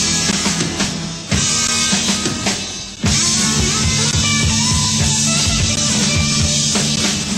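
A rock and roll band playing, with a drum kit and guitar. The band comes in harder with a sudden accent about a second in and again about three seconds in.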